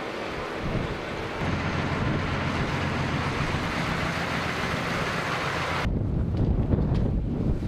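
Steady running of heavy machinery with a broad hiss and a low hum. About six seconds in the hiss cuts off, leaving a low gusting rumble of wind on the microphone.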